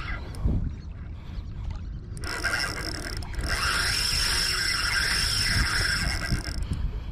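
Spinning reel being cranked: a steady mechanical whirr of the reel's gears starts about two seconds in and stops near the end.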